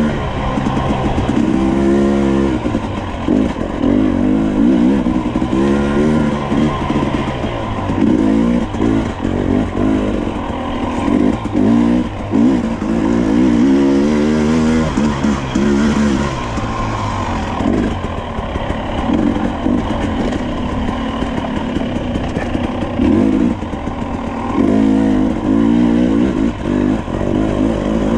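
Two-stroke dirt bike engine being ridden on a rough trail, its pitch climbing and dropping over and over as the throttle is opened and rolled off every couple of seconds.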